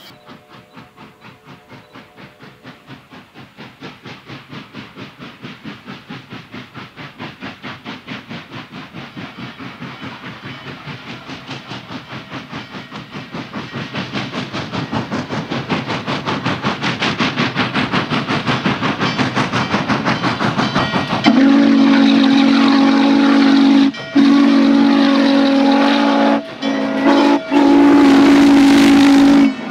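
Norfolk and Western 611, a class J 4-8-4 steam locomotive, working hard with quick, even exhaust chuffs that grow steadily louder. About two-thirds of the way through, its steam whistle sounds the long, long, short, long grade-crossing signal.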